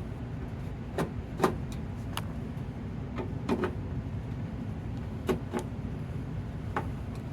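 Light clicks and taps as a fire alarm control panel's mounting screws are worked loose from the wall, about seven scattered over the stretch, over a steady low rumble.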